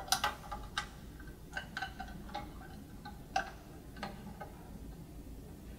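Small plastic clicks and taps as a power-harness connector and cable are handled and pushed into place on a cable-TV amplifier. There are about eight sharp ticks, irregularly spaced, mostly in the first four seconds.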